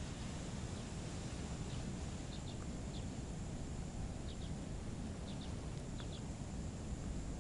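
Faint, short bird chirps, often in quick pairs, scattered over a steady low rumble and hiss of outdoor background noise.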